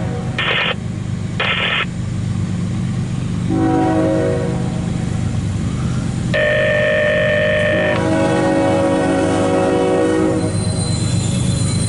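Freight diesel locomotive sounding its multi-chime air horn as it nears a road crossing, the warning for the crossing. One blast ends as the sound begins; a long blast starts about three and a half seconds in, grows louder about six seconds in, and stops about ten and a half seconds in. A steady low rumble of the locomotive runs underneath.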